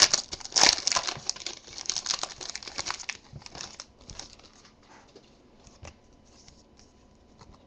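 Foil wrapper of a Topps Strata football card pack being torn open and crinkled for about three seconds, then fainter, scattered rustles as the cards are handled.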